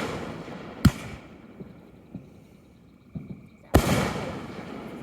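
Fireworks bursting in the air: a sharp bang about a second in and another near four seconds, a few fainter pops between, each big one trailing off in a long fading rumble.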